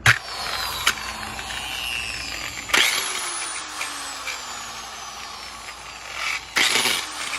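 Electric polisher switched on in short bursts, three times, each time coasting down with a whine that falls in pitch. It makes a strange noise that marks an internal fault.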